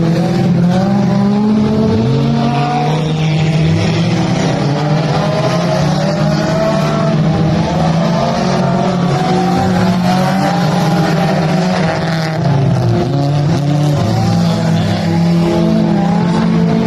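Mini stock race cars running laps on a dirt oval, with a steady engine drone and several engine notes rising and falling as the cars accelerate and lift.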